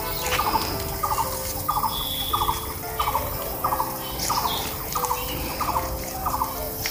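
Background music of held tones that change pitch every second or so, with a short, stuttering bird-like call repeating about every half-second and a few high chirps.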